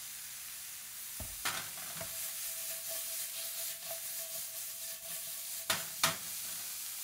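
Shrimp sizzling in a frying pan as the pan is shaken and tossed, the shrimp sliding and knocking about in it. A few clunks about a second and a half in and again near the end.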